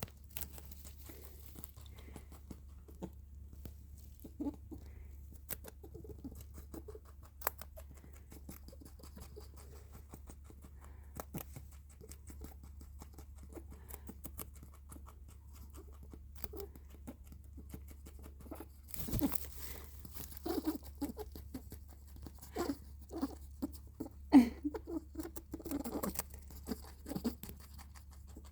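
Pet rabbit squeaking in short calls, a run of them in the last third, the loudest about 24 seconds in, over soft pattering and clicking from its movements. A low steady hum runs underneath.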